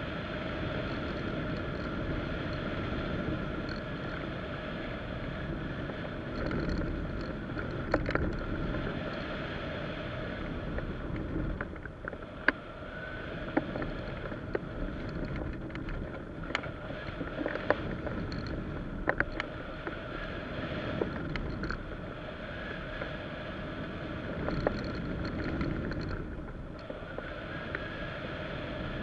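Wind rushing over a wing-mounted camera on a hang glider in flight, with a steady hum underneath and scattered sharp ticks and rattles.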